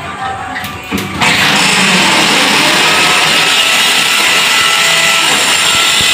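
Corded power drill running at a steady speed for about five seconds, starting about a second in and cutting off abruptly near the end.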